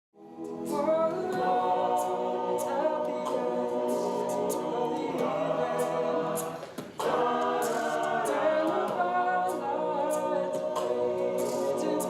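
All-male a cappella group singing in close harmony over a steady percussive beat. The singing breaks off briefly about seven seconds in, then picks up again.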